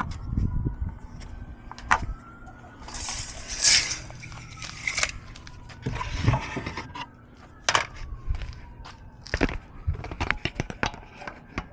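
Workshop handling noise: scattered knocks and clicks as plywood pieces and tools are moved, with a brief scrape about three seconds in.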